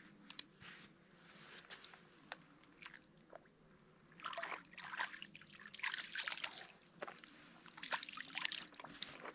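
Shallow river water splashing and sloshing around hands at the bank's edge as a caught fish is lowered in and released, in irregular bursts from about four seconds in. A few faint clicks come earlier.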